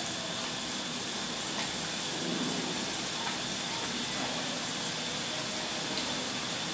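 Boondi (drops of gram-flour batter) deep-frying in hot oil in a cast iron kadhai, a steady sizzle as fresh batter falls through a slotted ladle into the oil.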